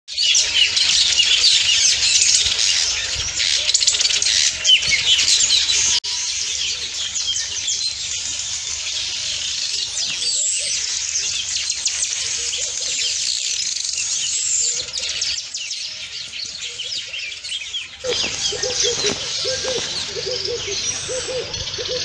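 Dense chorus of many small birds chirping and twittering at once. The sound changes abruptly about six seconds in, and again near the end, where lower repeated calls join the chirping.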